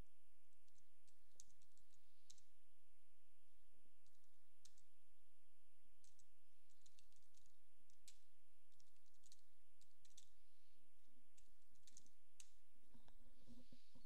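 Computer keyboard being typed on: irregular, quick key clicks in short runs with pauses, as a long command is entered.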